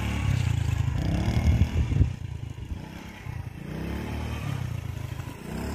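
Small motorcycle engine running as it is ridden, revving up and easing off: the note rises over the first two seconds, drops away, then climbs again a couple of times toward the end.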